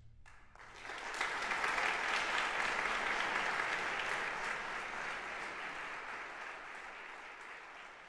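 Audience applauding, starting about half a second in, swelling quickly, then slowly dying away.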